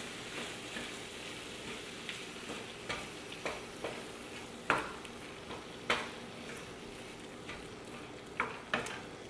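Wooden spoon stirring a thick tomato-sauce chili mixture in a skillet, with irregular soft scrapes and taps against the pan over a faint steady sizzle from the stove.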